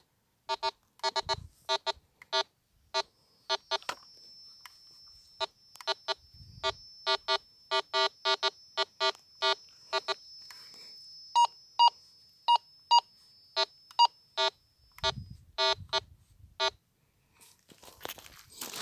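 Minelab Go-Find metal detector beeping over and over as its coil sweeps the ground, short electronic beeps at roughly two a second, with a run of higher-pitched beeps in the middle. The signals come from the stony ground itself, which the owner takes, unsure, for mineralized soil rather than metal.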